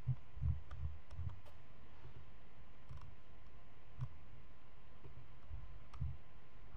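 Computer mouse clicks and scroll-wheel ticks: a quick cluster in the first second and single clicks about three, four and six seconds in, over a steady low background hum.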